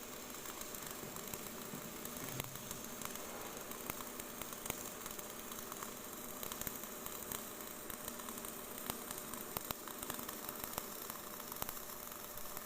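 Electric arc welding: a steady crackling sizzle with many small irregular pops.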